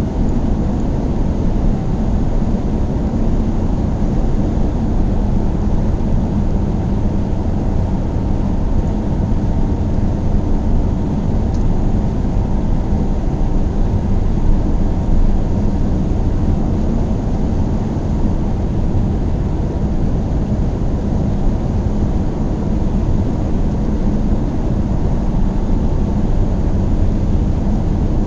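A car driving at a steady pace: a low, even rumble of engine and tyre noise that holds level throughout.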